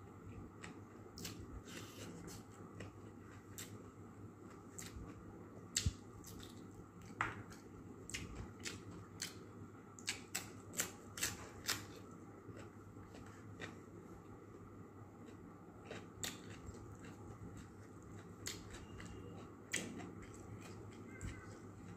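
Chewing and crunching of raw vegetables close to the microphone: irregular sharp crunches and mouth clicks, thickest about halfway through.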